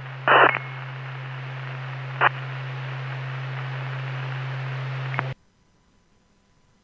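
Police scanner radio channel held open with no one talking: steady static hiss over a low hum, broken by a short loud burst near the start and a brief crackle about two seconds in. The transmission cuts off abruptly about five seconds in as the channel drops out.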